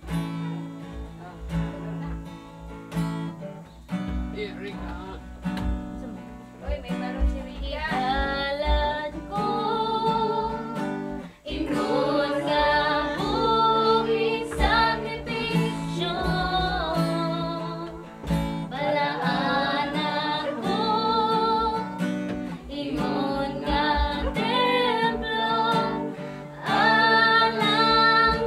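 Acoustic guitar strummed in steady chords, with voices joining in singing about seven seconds in and carrying on alongside the guitar.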